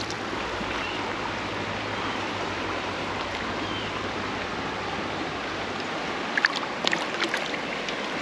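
Shallow creek water running steadily over stones. About six seconds in come a few short splashes as a hooked trout is handled in the shallows.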